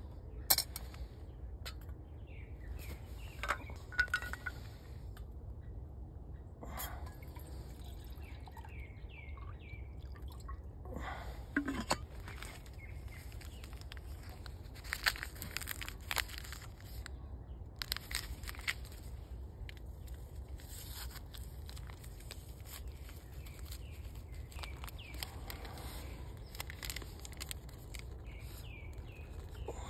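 Birds chirping over a steady low rumble, with scattered sharp clinks and knocks of camp cooking gear, a steel pot, spoon and small stove, as coffee is made.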